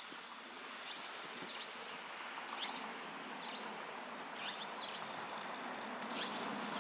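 Sand pouring from a bag into the hollow plastic base of a Simplay3 dig-free mailbox, a steady hiss.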